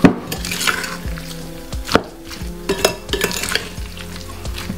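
Chicken pieces being mixed in a wet curry-paste marinade in a bowl: a wet, squelching stir broken by about half a dozen sharp knocks against the bowl.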